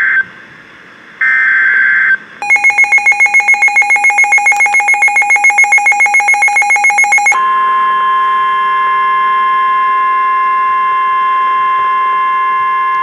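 Emergency Alert System tones from NOAA Weather Radio. There is the tail of a screeching SAME data burst, a second burst about a second in, and then a fast-pulsing two-tone beep for about five seconds. After that comes the steady 1050 Hz warning alarm tone, held for about five and a half seconds and announcing a warning.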